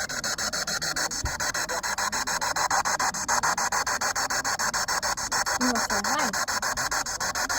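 Spirit box sweeping through radio stations: choppy static hiss cut into even pulses about ten times a second, with a few brief warbling scraps of radio sound near the end.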